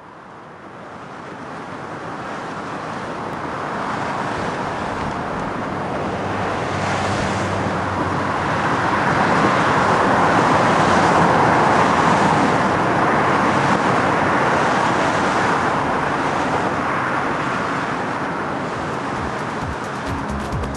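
Multi-lane highway traffic: a steady wash of tyre and engine noise that fades in over the first few seconds and is loudest about halfway through.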